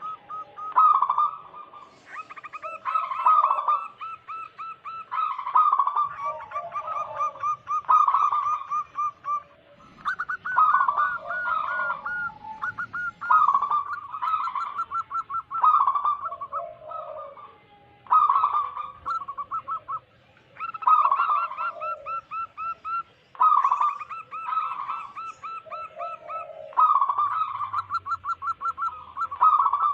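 Zebra dove (perkutut) singing: rapid runs of short, trilled coos, phrase after phrase, each lasting a second or two with short pauses between.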